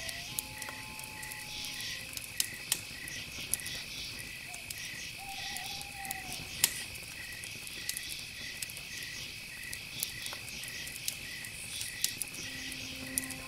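Steady high chirping of insects, with a second chirp pulsing about twice a second throughout, and scattered sharp clicks.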